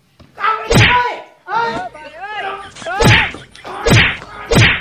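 Open-hand whacks landing on a person's back, four sharp strikes spread across a few seconds. Between them, a voice cries out.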